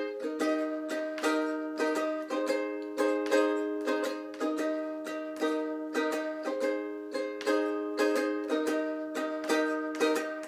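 Acoustic plucked string instrument, likely a ukulele, strumming rhythmic chords in an instrumental passage, with no singing.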